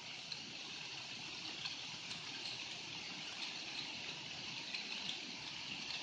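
Steady high-pitched chirring of an outdoor insect chorus, with faint scattered clicks of Rubik's cubes being turned.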